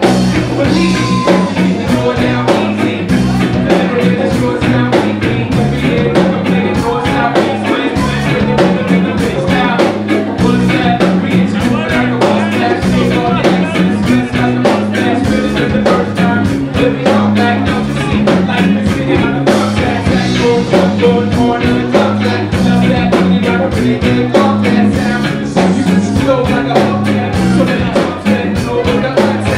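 A live band playing a reggae-style rock song: electric guitars, bass and drums under a lead singer.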